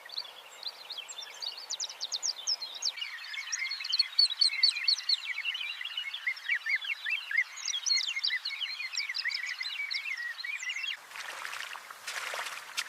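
A dense chorus of many short, high chirps overlapping one another. Near the end it gives way to a few brief rushes of noise.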